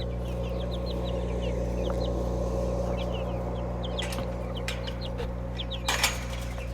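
Chicks peeping, many short high chirps in quick succession, over a steady low hum, with a brief rustle or clatter about six seconds in.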